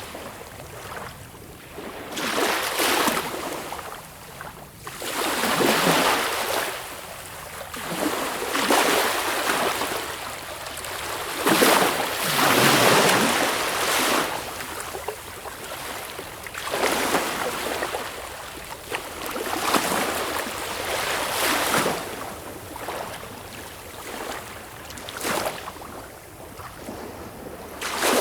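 Sea waves breaking and washing in: a rush of surf swells and falls away every few seconds, with the largest wave about twelve seconds in.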